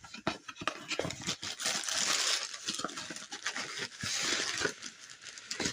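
Packaging crinkling and rustling as it is handled and opened, with many small clicks and taps and two longer stretches of tearing or rustling.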